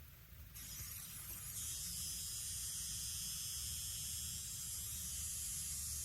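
A steady high hiss that swells in over the first second or two and then holds, over a faint low hum.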